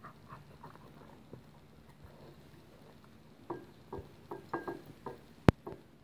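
Border Terrier eating beef liver off a ceramic plate: wet chewing and licking, sparse at first, then a quick run of clicks and smacks in the second half. One sharp click, the loudest sound, comes near the end.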